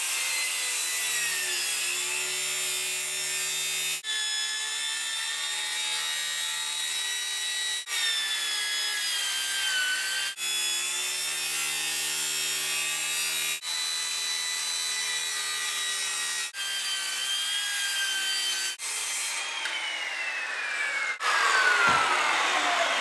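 Circular saw running and cutting along the edge of a light-coloured laminate panel, pulled backwards along a scribe line, with a steady motor whine broken briefly every few seconds. Near the end the trigger is released and the motor winds down in a falling whine, with a thump as the saw is set down on the table.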